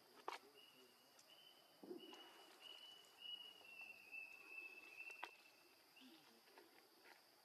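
Faint forest ambience: a thin, high, whistle-like tone held for about five seconds in short linked pieces, dropping slightly in pitch near the end, over a steady high hiss. A sharp click comes just after the start and another about five seconds in.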